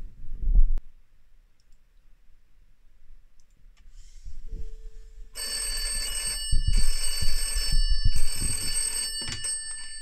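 Red rotary-dial telephone's electromechanical bell ringing in three bursts of about a second each, signalling an incoming SIP call. It stops near the end as the handset is lifted. A thump about half a second in.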